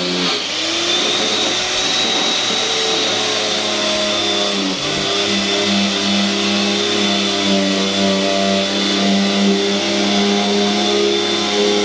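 Electric power tool motor running steadily at high speed, as used for stripping old paint and corrosion from an aluminium door panel, its pitch sagging briefly about five seconds in as it takes load.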